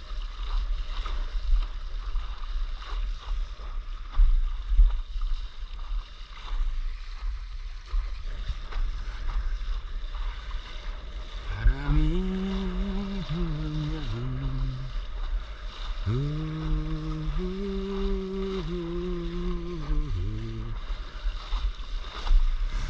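Windsurf board planing over choppy sea, water rushing and spraying off the hull under a constant low rumble of wind buffeting the microphone. About halfway in, a man hums a tune in two phrases.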